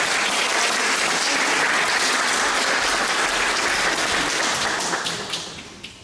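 Audience applauding, dying away in the last second with a few scattered final claps.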